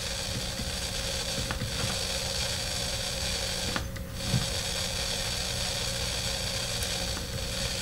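Vintage DeArmond 1802 Weeper wah pedal's circuit heard through a guitar amp, idle: a steady hum and hiss with a few faint crackles, which is very noisy. The owner takes it for a noisy circuit, most likely a noisy transistor or the inductor.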